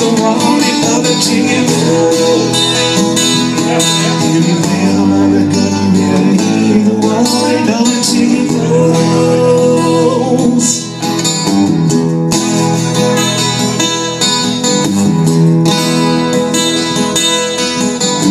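Acoustic guitar strummed live, playing an instrumental stretch of the song.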